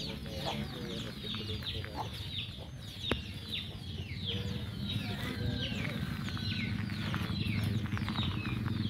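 Birds peeping: many short, high chirps that fall in pitch, several a second, over a steady low hum.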